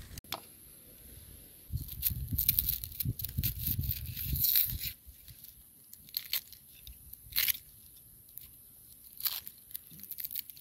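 Knife cutting into a whole onion held in the hand, making crisp crunches. A busier run of crunching and rustling fills the first half, then three separate crunches follow a second or two apart.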